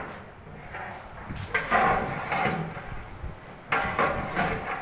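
Metal ladle stirring beef and spices in a large cooking pot, scraping and knocking against the pot, while the masala is sautéed. Indistinct voices in the background.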